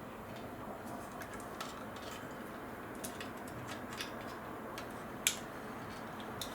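Faint clicks and taps of plastic parts being handled as the Dyson V10's motor is fitted back into the vacuum body, with one sharper click about five seconds in.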